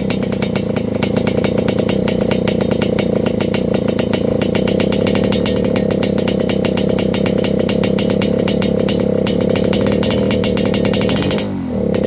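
Yamaha RX King's two-stroke single-cylinder engine held at high revs with a raspy 'ngorok' exhaust note, carburettor set rich. Near the end the revs drop briefly and climb back up.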